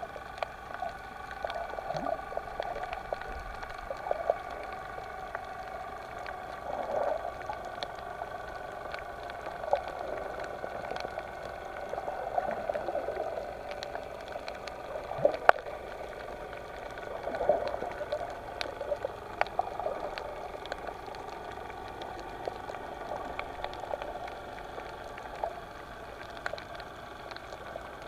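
Underwater sound picked up by a camera beneath the sea surface: muffled bubbling and gurgling swells come and go over a steady faint hum, with scattered sharp clicks and crackles.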